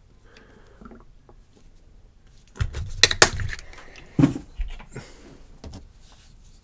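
Handling sounds: faint rustling, then a quick cluster of sharp clicks and knocks about two and a half seconds in and another knock about a second later. They come from the plastic bottle of rubbing alcohol and the folding knife being handled.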